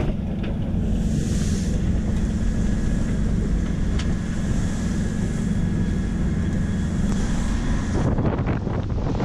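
Strong wind buffeting the microphone on the deck of a sailing yacht beating to windward into a gale, heard as a steady low rumble. About eight seconds in the rumble turns rougher and noisier, as spray and rushing water join it.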